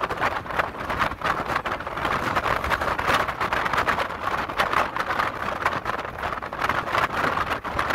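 Steady rushing wind and road noise from a moving vehicle, fluttering unevenly throughout.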